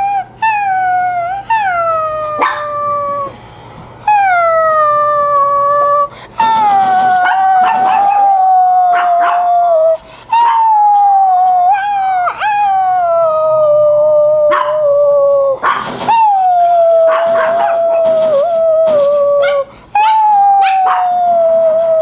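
Chihuahua howling: a string of long pitched howls, each sliding down in pitch over a few seconds, broken by a few short sharp yips.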